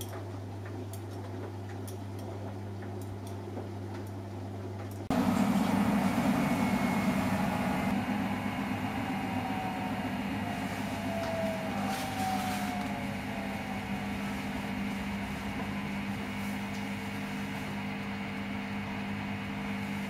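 Samsung Eco Bubble front-loading washing machine running a wash: a steady low motor hum for the first few seconds, then, about five seconds in, a louder whirring as the drum spins fast, with a faint whine sliding down in pitch partway through.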